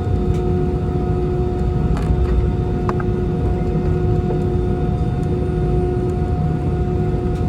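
Airbus A320 jet engines running: a steady, loud low rumble with a steady whine on top.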